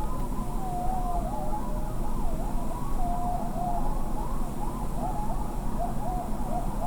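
A pack of coyotes howling and yipping together: many overlapping, wavering cries that rise and fall in pitch, over a steady low background rumble.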